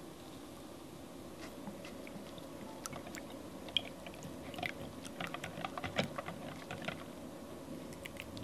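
Silicone whisk beating egg whites in a glass bowl: a quick, irregular run of small clicks and taps against the glass, starting about a second and a half in and stopping shortly before the end. The whites are being loosened in circles, not whipped to foam.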